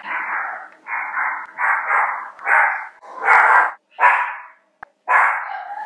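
A dog barking repeatedly, about seven barks roughly a second apart, with one short click near the end.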